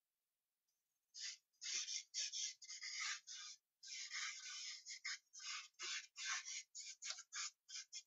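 Drawing strokes on newsprint: a stick of drawing medium scratching and rubbing across the paper as shading is laid in. After about a second of quiet, a quick run of short scratchy strokes, about three a second, with one longer stroke near the middle.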